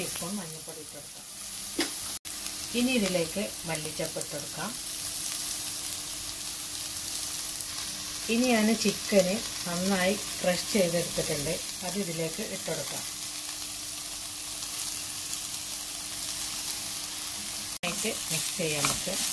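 Onion and shredded chicken frying in oil in a nonstick pan, sizzling steadily while being stirred with a plastic spoon. A voice is heard in the background now and then, loudest in the middle.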